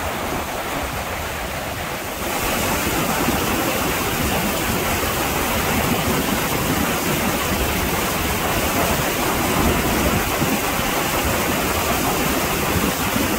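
Mountain creek rapids rushing over flat rock ledges: a steady, even rush of water that gets louder and brighter about two seconds in.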